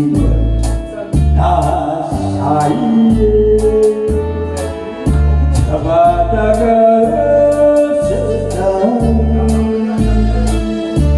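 Trot-style backing music: a steady, regular bass beat under keyboard and long held melody notes.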